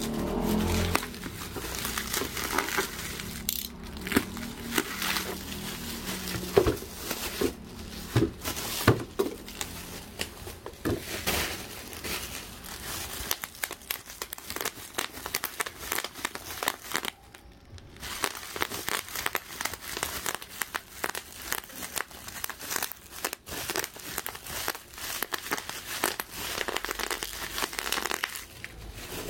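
Bubble wrap and a clear plastic toy package crinkling and rustling as they are handled and unwrapped, with many irregular crackles and clicks and a short pause a little past the middle.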